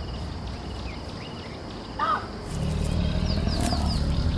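Savanna ambience: a steady low rumble that grows louder about halfway through, with small birds chirping and one short, harsh bird call about two seconds in.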